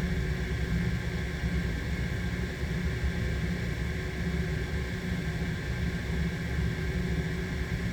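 Steady machinery hum with a low rumble and a constant hiss, unchanging throughout.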